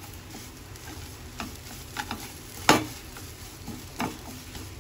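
Wooden spatula stirring and scraping a mash of fried Maggi noodles and boiled potato in a non-stick pan, with a low sizzle underneath. Scattered knocks of the spatula against the pan come through, the loudest just past the middle.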